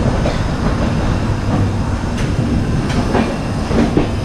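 Duranto Express train rolling out of a station, heard from a coach doorway: a steady rumble of wheels on the rails, with a few sharp clicks as the wheels cross rail joints.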